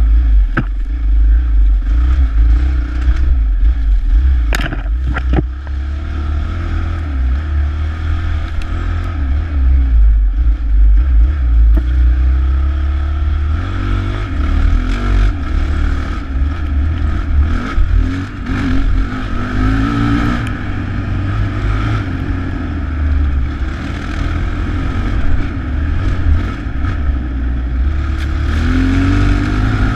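Dirt bike engine running on a rocky trail, its revs rising and falling with the throttle, over a heavy low rumble. A few sharp knocks come around four to five seconds in.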